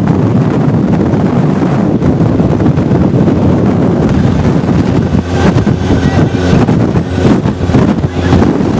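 Modified four-wheel-drive off-road vehicle's engine running loudly under way, heard from its open-sided cab, with wind buffeting the microphone.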